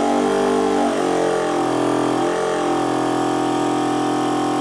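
Portable 12-volt car air compressor running with a steady motor hum while pumping up an inflatable snow tube, its pitch wavering slightly.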